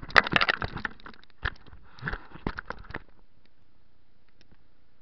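Handling noise from a small camera rubbing and knocking against clothing: a burst of rustling and clicks for about three seconds, then only a faint steady hiss.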